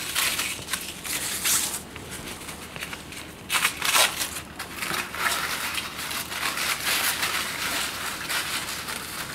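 Crepe paper rustling and crinkling as a wrapped crepe-paper ball is unwound by hand, with a few louder crackles, the strongest about one and a half seconds in and again around three and a half to four seconds in.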